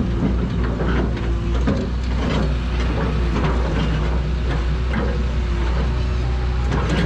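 Backhoe excavators' engines running steadily, with a low hum and a few steady tones, broken by frequent irregular knocks and scrapes of the digging work.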